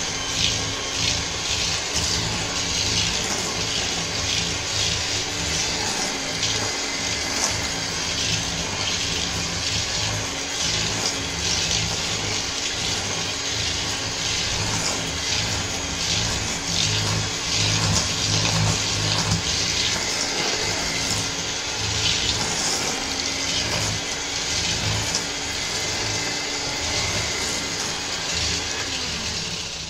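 Kenwood 250 W electric hand mixer running steadily at speed, its beaters creaming butter, sugar and egg yolk in a stainless steel bowl with frequent clicks against the bowl. The motor cuts off just before the end.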